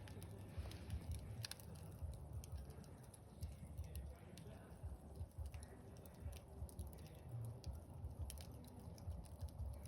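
Campfire crackling: irregular sharp pops and snaps over a low rumble.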